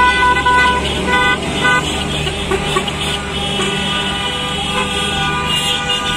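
Many car horns honking together in a celebratory motorcade: short repeated beeps in the first two seconds, then longer held blasts, over the steady low rumble of car and truck engines.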